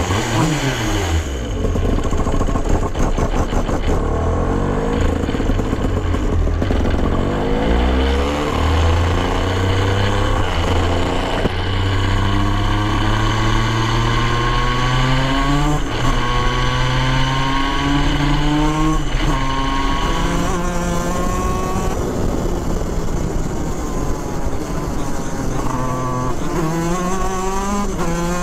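Racing kart engine heard on board, loud and steady, its pitch climbing in long rising sweeps and dropping back sharply several times as the kart accelerates and slows.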